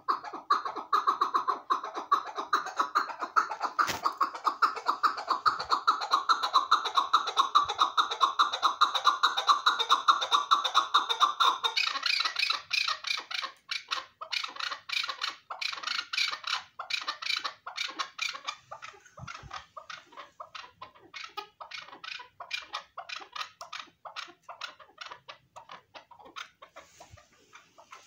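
Chukar partridge calling in a long run of rapid repeated notes, loudest for about the first twelve seconds, then shifting to a higher, thinner run that tails off toward the end.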